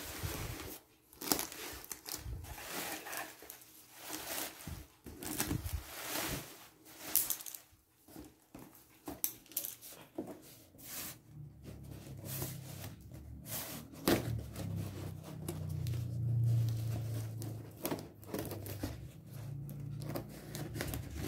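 Cardboard box being opened: crinkling and rustling as it is handled, with packing tape torn and cut with scissors in short irregular strokes. A steady low hum joins from about halfway through.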